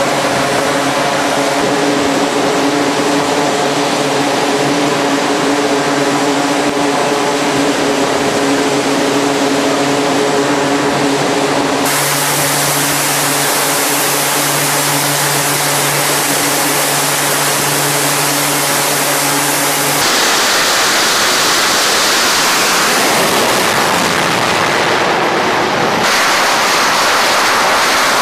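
Aircraft noise on a carrier flight deck in three cuts. First a steady hum with several held tones. From about 12 seconds a turboprop aircraft's engines run with a low steady drone. From about 20 seconds an F/A-18 Super Hornet's jet engines give a loud rushing noise at full power on the steam catapult before launch, growing louder about 26 seconds in.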